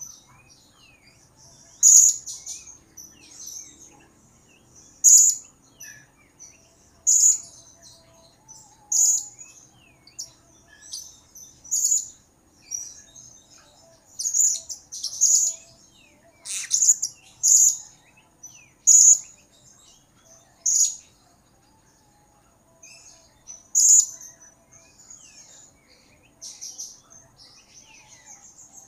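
Blue-crowned hanging parrot (serindit) giving a series of short, high-pitched, sharp chirps, one every second or two, with a pause of a few seconds past the middle.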